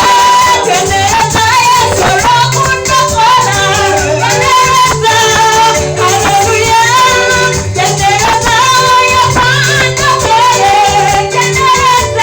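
Praise music: singing over a steady repeating bass line, with a shaker or rattle keeping time.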